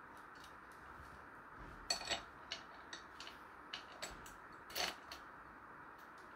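Scattered small clicks and metallic clinks of screws being handled and fitted into a gaming chair's metal seat frame by hand, the louder ones about two seconds in and just before five seconds.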